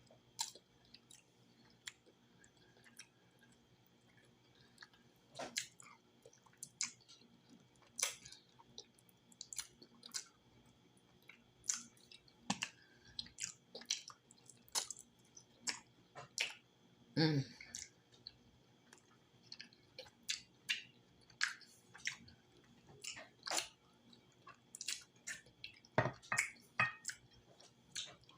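Close-miked chewing and wet lip smacks of someone eating tender, cooked cow foot: irregular sticky clicks and squelches, with one longer, lower sound about seventeen seconds in.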